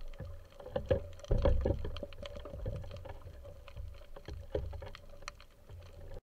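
Muffled underwater sound from an action camera in a waterproof housing: water rushing and rumbling against the housing under a steady hum, with many scattered clicks and knocks. It cuts off suddenly near the end.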